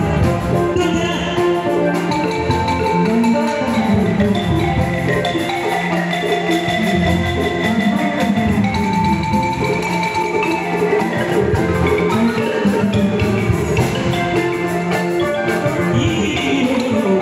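Live band music led by a balafon, its wooden keys struck with mallets, over guitar and drums.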